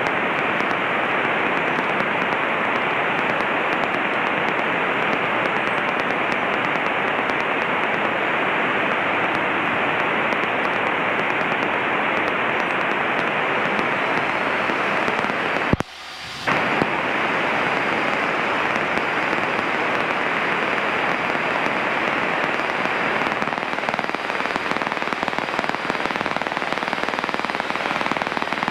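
Steady crackling radio static through the aircraft's headset audio, the radio interference picked up in flight. It cuts out abruptly for under a second about midway, with a click, then comes straight back.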